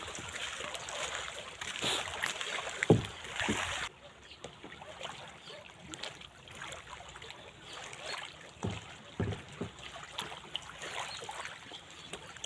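Water splashing and lapping around a kayak in the shallows, with a few short knocks, the sharpest just before three seconds in. The sound drops suddenly quieter about four seconds in.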